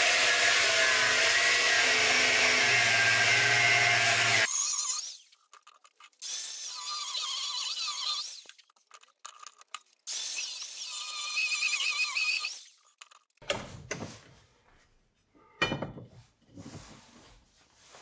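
Angle grinder cutting through flat steel bar: a loud, steady grinding with a wavering whine that stops suddenly about four seconds in. Two shorter, quieter bursts of grinding follow, then scattered scrapes and knocks of metal being worked.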